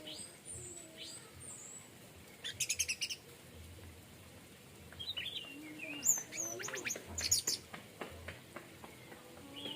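Orange-headed thrush singing: high whistled notes and chirps, with two loud runs of rapid repeated notes, one about two and a half seconds in and another from about six to seven and a half seconds.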